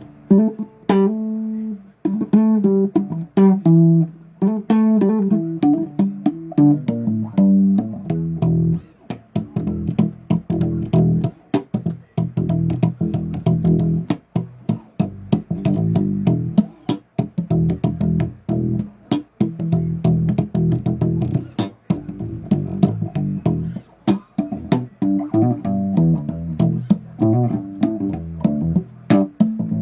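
Bass guitar played solo, riffing. A few slower ringing notes open, then from about nine seconds in a busy run of quick notes with sharp, clicky attacks.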